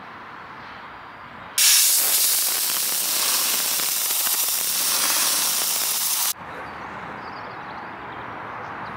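Compressed-air blow gun blasting the foam pad of a dual-action polisher clean: one steady, loud hiss of air that starts abruptly about a second and a half in and cuts off sharply nearly five seconds later.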